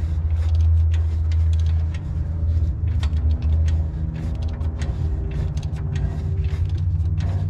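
A socket wrench on the engine's crank bolt, turning the engine over by hand, gives off irregular short clicks and knocks over a steady low hum.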